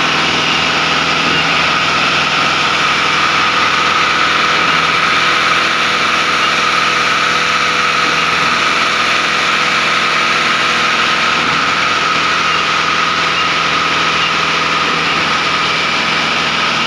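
Concrete pump's engine running steadily at a constant speed, with a sustained whine on top.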